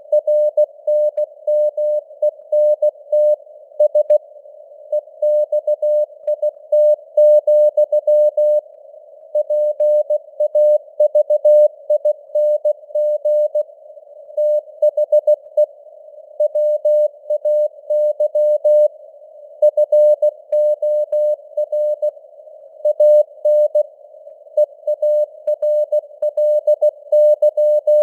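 Morse code at 16 words per minute: a single mid-pitched beeping tone keyed on and off in short dots and longer dashes. Simulated radio noise hisses around the tone.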